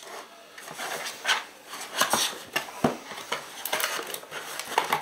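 Motherboard accessories in small plastic bags being handled and set down on a wooden board: crinkling plastic with irregular light knocks and clicks.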